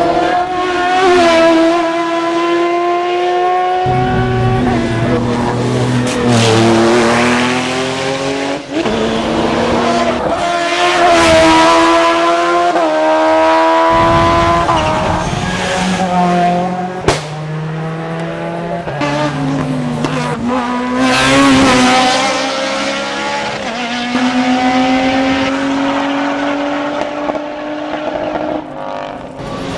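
Hill-climb race car engines revving hard under full throttle. The pitch climbs through each gear and drops sharply at each upshift, several times over. There is a single sharp crack about 17 seconds in.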